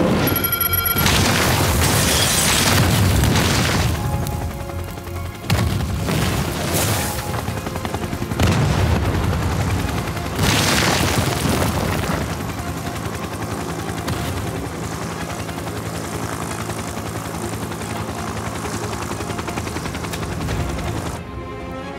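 Film explosion sound effects, deep booms and fire rumble, over a dramatic music score. Fresh booms hit suddenly a few times in the first half, then the rumble settles into a steadier, quieter stretch.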